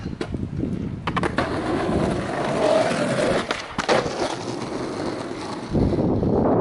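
Skateboard wheels rolling on asphalt with a steady rumble, broken by a few sharp clacks of the board about a second in and again around four seconds. The rumble grows louder near the end.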